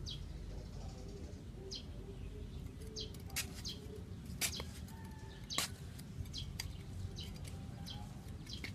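Small birds chirping in short, high notes scattered through, over a steady low background rumble. A few sharp clicks, the loudest about three and a half, four and a half and five and a half seconds in, come from a small hand trowel digging into dry clay soil.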